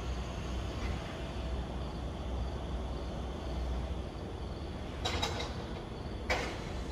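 Steady low rumble of a lorry's diesel engine idling during night-time unloading. Two clattering knocks of crates being handled, a short cluster about five seconds in and a sharper single knock a second later.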